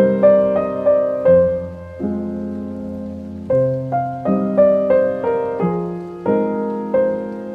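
Solo piano music: a slow classical-style melody of struck notes over held low chords, pausing on a sustained chord about two seconds in before the melody resumes.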